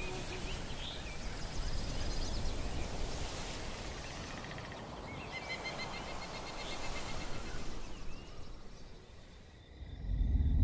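Evening woodland ambience from a film trailer soundtrack: birds chirping and a steady high-pitched whine over outdoor background noise. It fades about nine seconds in, and then a loud, deep rumble swells up at the very end.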